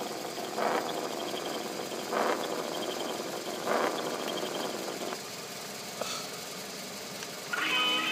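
Small electric motors and gearboxes of radio-controlled toy trucks whirring as they drive, surging in short bursts about every second and a half. A fast, even chirping runs underneath for the first half, and music starts near the end.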